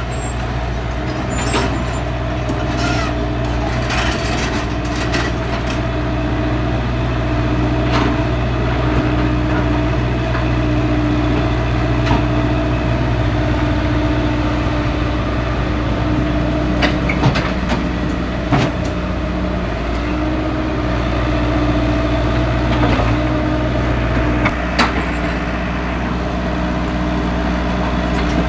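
Heavy diesel engine of an excavator running steadily, with scattered sharp knocks and clanks from the machine at work.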